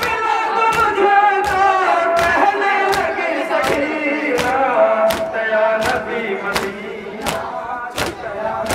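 A crowd of men chanting together, kept in time by sharp, even beats about every three-quarters of a second.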